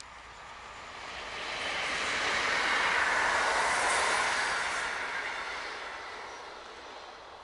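Electric passenger train passing close by: steady wheel and rolling rush that swells to a peak about three to four seconds in, then fades as the train moves away.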